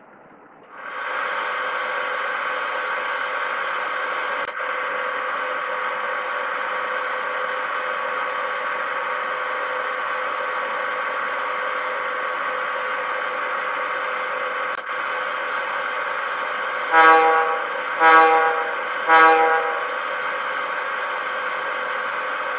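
Econami DCC sound decoder in an HO-scale model electric locomotive, played through the model's small speaker: muted at first, the sound fades back in about a second in as a steady electrical hum with hiss. Near the end come three short horn toots about a second apart.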